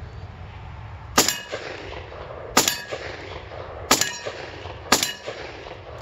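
Benelli M4 12-gauge semi-automatic shotgun fired four times, about a second or so apart, each shot followed by a brief metallic ring. The string stops after the fourth shot because of a failure to feed.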